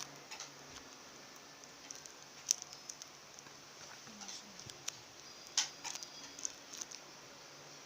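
Homemade paper squishies being handled: scattered light clicks and crinkles of taped paper, the sharpest about two and a half seconds and five and a half seconds in.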